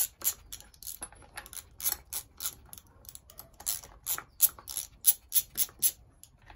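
A socket wrench ratcheting in short, irregular runs of sharp clicks as the nuts holding a Stihl chainsaw's sprocket cover are undone.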